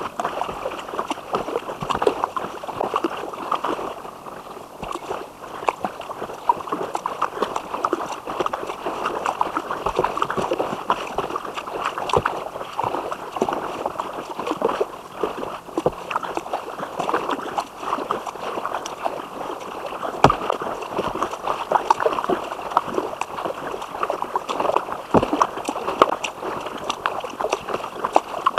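A kayak being paddled: irregular splashing, sloshing and dripping of water from the paddle strokes, with small knocks.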